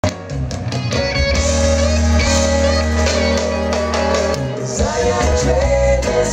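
Live reggae band playing, with a deep steady bass line under keyboards, and women backing singers singing into microphones.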